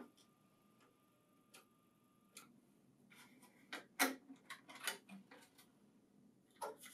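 Faint clicks and plastic rattles from the wireless print server module being unclipped and pulled out of the printer's controller-board bay, with a few scattered ticks first. The loudest click comes about four seconds in.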